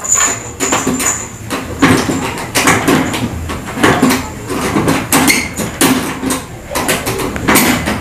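A crow pecking and pulling at the small door of a wooden box, rattling and knocking the door and its latch over and over in irregular bursts.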